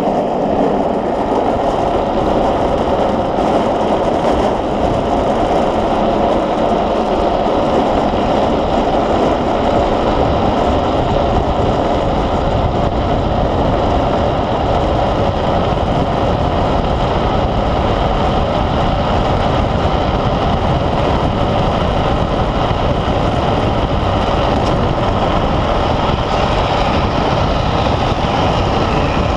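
Gravity speed trike rolling fast downhill on asphalt: a steady rush of wind and wheel noise.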